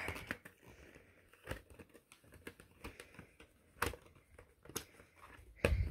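Plastic VHS clamshell case and videotape cassette being handled as the tape is taken out: scattered light clicks and plastic knocks, with a louder knock near the end.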